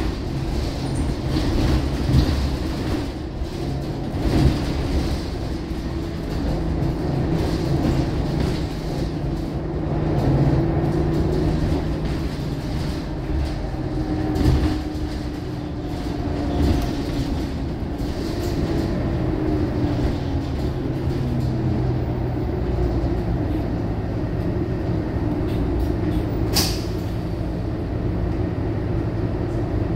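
Inside a moving Scania K230UB single-deck city bus: its five-cylinder diesel engine runs steadily, its note rising and falling as the bus speeds up and changes gear, over road noise and rattling of the interior fittings. One sharp click stands out near the end.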